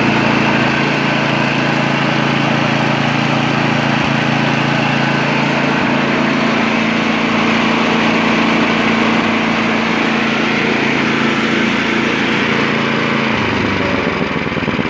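Warm Tecumseh Snowking single-cylinder engine on a Snapper snowblower running steadily after a pull start, its pitch dropping about 13 seconds in.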